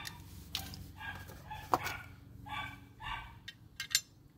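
A dog barking about five times, short barks spread across the few seconds, with sharp metal clicks from steel brake parts being handled, the loudest about halfway through and near the end.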